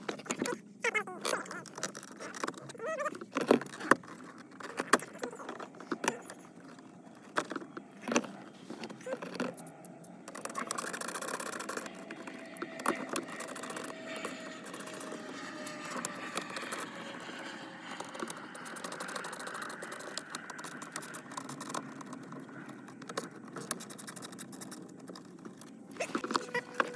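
Clicks, knocks and light rattles of plastic interior trim being handled and worked loose from a car's centre console. In the second half they give way to a steadier, fainter hiss.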